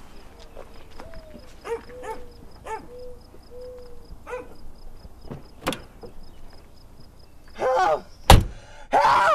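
Car doors shutting with sharp thuds, one a little past halfway and a louder one near the end, over a fast, steady ticking. Harsh, noisy bursts come just before and just after the last thud.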